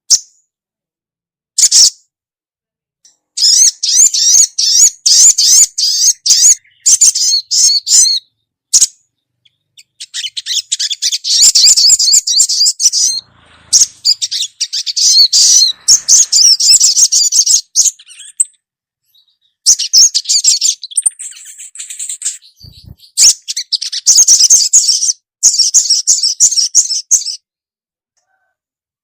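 Female sogon (sogok ontong) bird calling in rapid, high-pitched chattering chirps, in runs of a few seconds with short pauses between them, a call used as a lure to set male birds singing. The chirping stops near the end.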